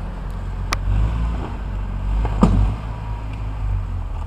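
Argo 8x8 amphibious ATV's engine running with a steady low drone as it drives. Two sharp knocks break through, the louder one about two and a half seconds in.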